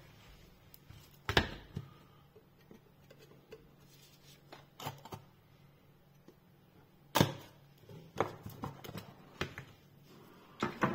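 A small cardboard box being handled and its seal stickers slit with a knife: scattered knocks, taps and scrapes of card and blade. The loudest knocks come about a second and a half in and again about seven seconds in.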